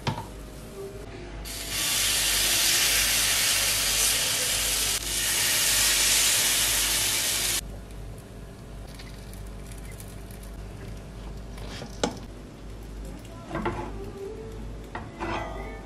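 Water on a hot stovetop waffle iron sizzling loudly for about six seconds as it flashes off, the sign that the iron is hot enough for the batter. Later come a few sharp clicks and knocks as the metal iron is closed and turned over on the gas burner.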